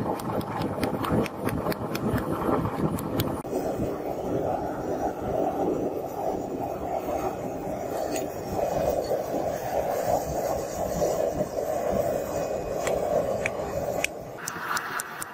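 A steady, loud rushing noise, with a few sharp metal clinks of tools against a steel anvil; the rushing cuts off about a second before the end.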